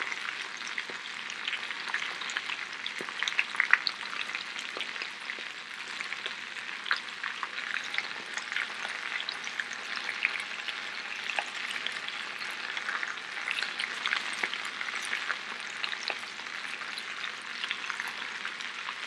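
Potato galettes with onions frying in two cast-iron skillets: a steady sizzle with many small, irregular crackles.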